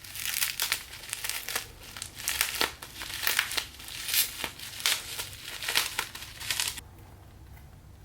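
Packaging being unwrapped by hand: irregular crinkling and rustling of wrapping material with sharp crackles, stopping about seven seconds in.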